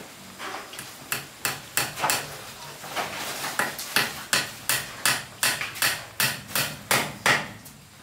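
Hammer blows on wood, struck in a steady run of about three a second; the run starts about a second in and stops near the end.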